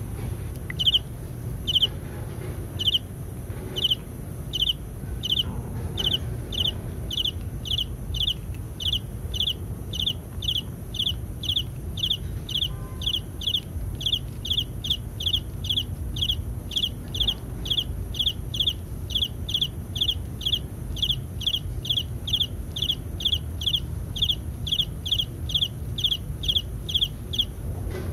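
A short, high chirp repeated in a steady rhythm. It comes about once a second at first and settles to about two a second after the first few seconds.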